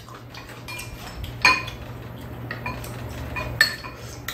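Metal spoons clinking and tapping against bowls as people eat. There are two louder ringing clinks, one about a second and a half in and one about three and a half seconds in, among lighter taps.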